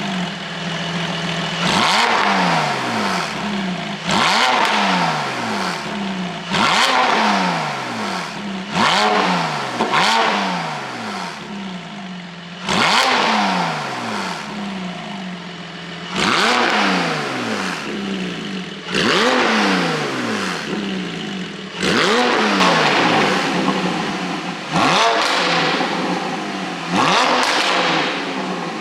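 Porsche 718 GTS 4.0's flat-six, fitted with an iPE exhaust and an ECU pop tune, revved in about a dozen sharp blips. Each one climbs quickly and then falls away slowly in pitch as the revs drop.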